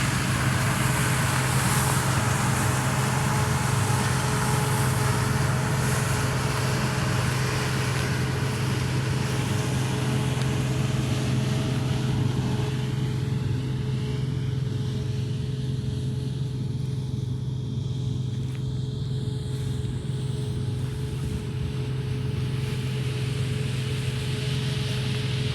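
Steady low mechanical hum of a running vehicle, with a constant tone and a hiss that thins out about halfway through.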